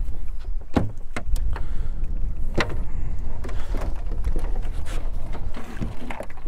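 Wind rumbling on a chest-mounted action-camera microphone, with scattered sharp knocks and bumps of the crab net and feet on a small fiberglass boat's deck.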